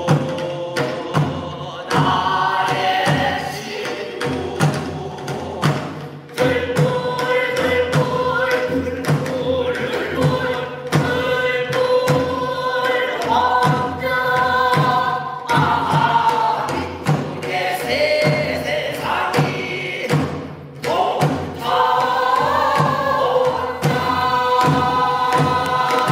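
A group of pansori singers singing together as a chorus, over a steady drum beat.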